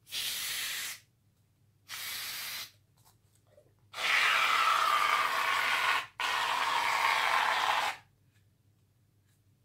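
Four bursts of spray hissing from a hair-product dispenser: two short ones in the first three seconds, then two longer, louder ones of about two seconds each.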